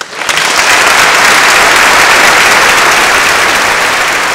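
Audience applauding, breaking out all at once and holding loud and steady.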